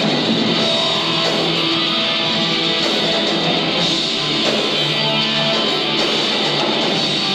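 Live heavy metal band playing: distorted electric guitars and drums in a dense, steady wall of sound.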